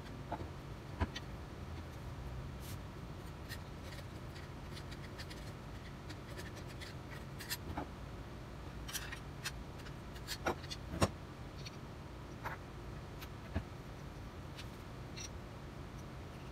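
Parts of a compass plane being handled and fitted with a screwdriver on a wooden workbench: scattered light clicks and taps of metal parts, over a steady low hum.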